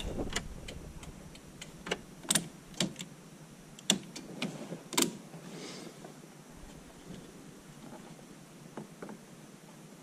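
Hands working on a van's dashboard and steering column area: scattered sharp clicks and knocks, about six in the first half, then fainter handling noise.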